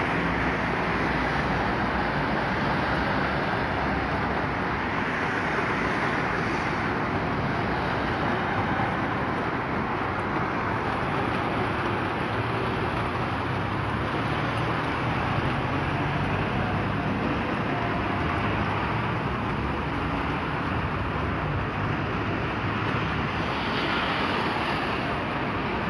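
Heavy rain mixed with hail pouring down on wet pavement and parked cars, a steady dense hiss.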